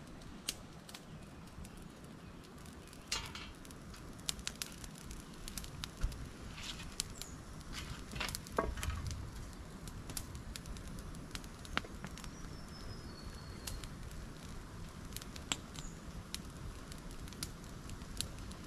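Raindrops pattering on a tarp shelter: scattered, irregular ticks over a steady low rumble.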